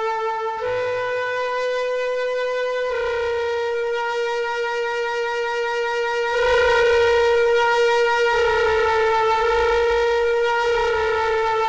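Background music: a reedy wind-instrument melody in long held notes, moving to a new note every two to three seconds.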